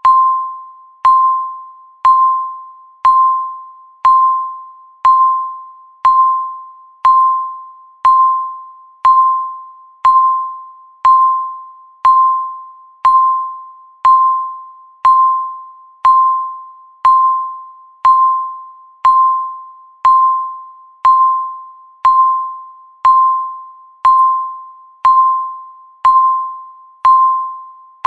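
Countdown timer beeping once a second: a single mid-pitched, bell-like tone that strikes sharply and fades away within the second, repeating evenly.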